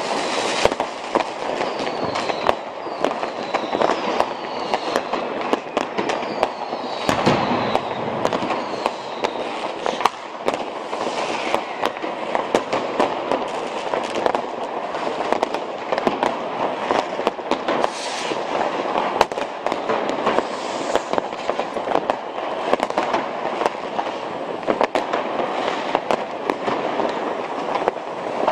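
Massed New Year's fireworks and firecrackers going off nonstop, a dense crackle of overlapping bangs with no pause. In the first few seconds and again a few seconds later, several whistling fireworks sound, each whistle falling in pitch.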